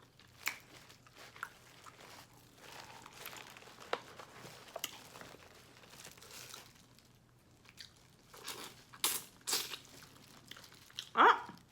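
Close-up seafood-boil eating sounds: crab-leg shells cracking and crunching, chewing, and crinkling, as scattered sharp clicks with a louder cluster of crunches about eight to nine and a half seconds in.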